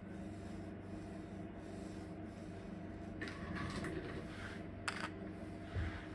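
Short rubbing strokes and a sharp click from hands working the old finish off a wooden radio cabinet, over a steady low hum.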